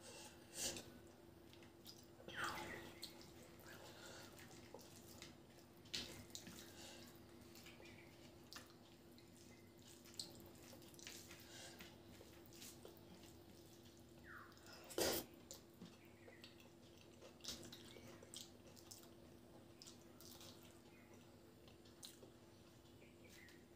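Close-up eating sounds of rice and curry eaten by hand: soft wet chewing, lip smacks and mouth clicks at irregular intervals, the loudest about fifteen seconds in. A faint steady hum runs underneath.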